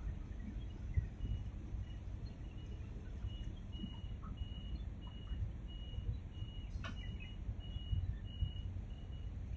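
Low, uneven rumble of wind buffeting the microphone, with a faint high chirp repeating about twice a second from a few seconds in.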